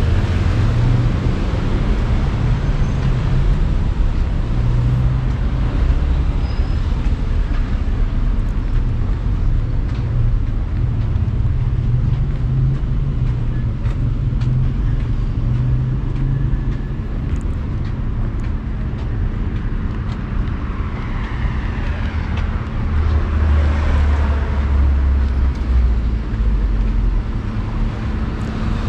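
Street traffic: cars running and passing with a steady low rumble, one vehicle passing close about three quarters of the way through.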